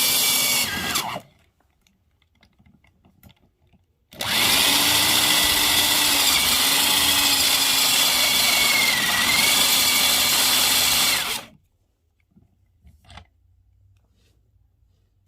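Power drill running in two runs. The first winds down about a second in. The second lasts about seven seconds, from about four seconds in, its pitch dipping and recovering as it loads up. A few light clicks follow.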